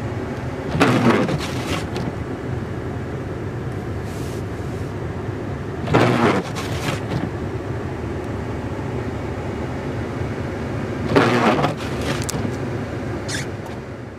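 Blizzard wind buffeting the microphone: a steady rumble with three stronger gusts, about five seconds apart.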